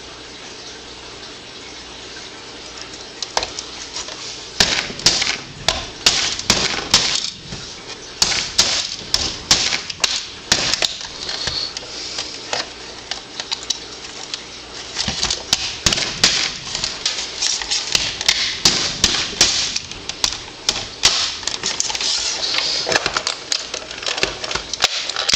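Alarm clock casing being pried and forced open with a knife blade: a busy run of sharp clicks, snaps and scraping that starts about four seconds in.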